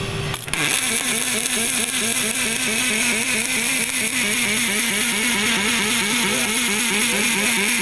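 Robotic MIG welding arc running on 3/64-inch aluminum wire: a steady hiss with a buzz that pulses several times a second. The sound changes abruptly about half a second in.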